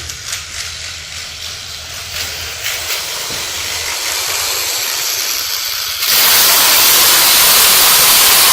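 A loud rushing hiss, like gas or air jetting from a tool, that builds slowly and then jumps suddenly much louder about six seconds in, as the torture tool starts up.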